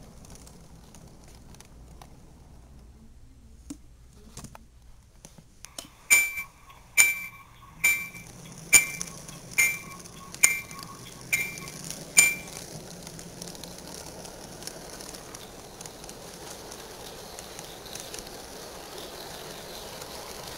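HO scale Amtrak model train with SDP40F locomotives running along the track with a steady hum. In the middle, eight bright, bell-like dings ring out evenly, just under a second apart.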